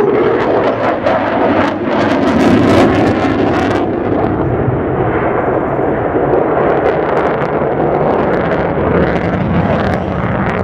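Loud, continuous jet noise from an F-15DJ Eagle's twin turbofan engines as it turns overhead, with a harsh crackle strongest about two to four seconds in.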